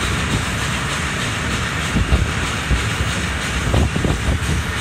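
Passenger train running along the rails: a steady rumble with irregular low knocks from the wheels and carriages, strongest about two seconds in and again near four seconds.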